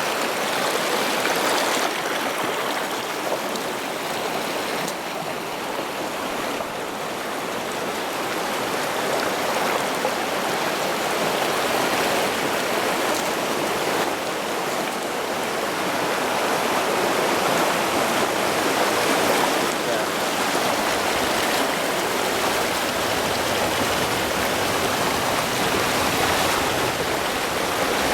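A creek's flowing water making a steady rushing sound that grows a little louder in the second half.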